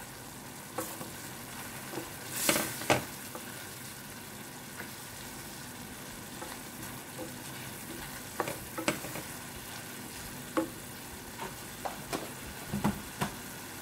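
Tomatoes, onions and garlic sizzling steadily in a stainless steel pan, with a wooden spoon stirring and now and then knocking and scraping against the pan.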